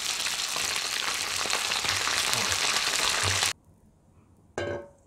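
Potato-starch-coated chicken wings frying in shallow oil in a frying pan, a dense, steady sizzle that cuts off suddenly about three and a half seconds in. A brief pitched sound follows about a second later.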